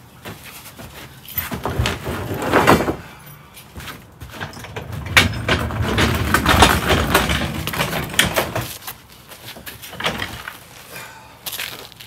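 Floor jack being rolled across a plywood floor, its wheels rumbling on the boards, with heavy footsteps: a short run about two seconds in and a longer one through the middle.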